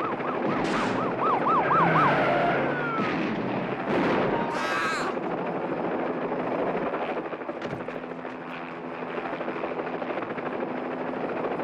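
Helicopter running overhead with a steady hum. For the first few seconds a police siren yelps rapidly, warbling up and down about four times a second, then slides down in pitch. There is a brief harsh screech around five seconds in.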